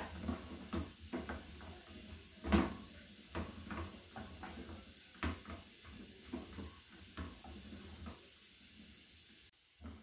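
A spatula stirring and folding cooked rice in a stainless steel pan, with soft, irregular scrapes and knocks against the pan, one a little louder about two and a half seconds in.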